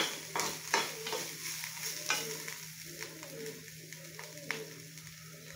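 Steel spoon scraping and knocking around a steel kadai as chopped bitter gourd and grated coconut are stirred and sautéed in oil on high heat, with a soft sizzle underneath. The scrapes come several times in the first second or two, then more sparsely.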